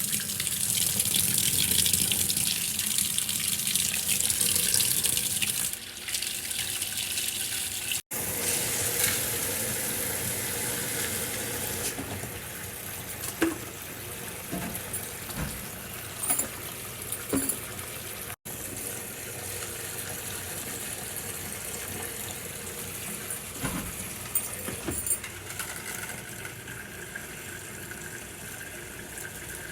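Water running and splashing steadily, loudest in the first several seconds, then quieter, with a few short knocks. The sound breaks off sharply twice, about eight and eighteen seconds in.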